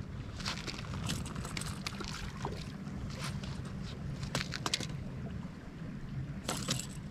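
Steady low rumble of wind on the microphone at a lake shore, broken by several short splashes and knocks, the loudest near the end, as a hooked largemouth bass is pulled to the rocks and grabbed by hand.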